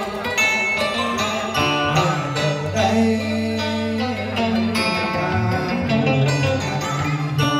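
Live cải lương accompaniment led by plucked strings playing a melody, with a little singing.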